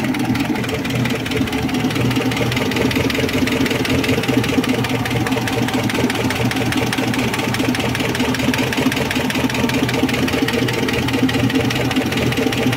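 GAZ-53 truck's ZMZ V8 petrol engine idling steadily, heard up close from the engine bay. The seller calls the engine new and needing no work.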